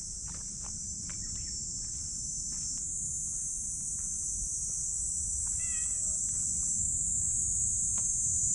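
A steady, high-pitched chorus of insects buzzing throughout, with scattered soft footstep clicks on pavement and a brief wavering call about six seconds in.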